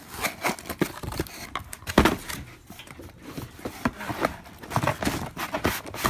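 Cardboard box and packaging being handled: irregular knocks, scrapes and rustles as the flaps are opened and the contents are pulled out, with the loudest knock about two seconds in.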